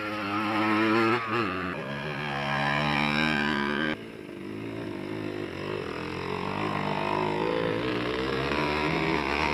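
Off-road motorcycle engines revving and riding past, their pitch rising and falling as the riders open and close the throttle. The sound cuts off suddenly about four seconds in and another bike's engine takes over.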